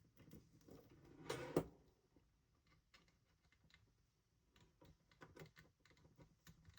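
Near silence with faint scattered clicks and one short clatter about a second and a half in: small hardware and tools being handled while a nut is fitted onto a small screw.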